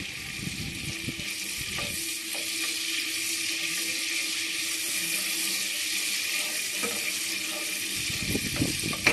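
Oil and butter sizzling steadily in a kadai as whole bay leaves fry, with a wooden spatula stirring through it, giving a few light knocks and some scraping near the end.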